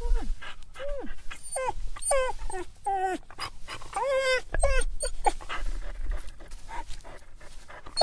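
A dog whining: a rapid run of short, high whimpers that bend and mostly fall in pitch, one after another, with breathy noises between them.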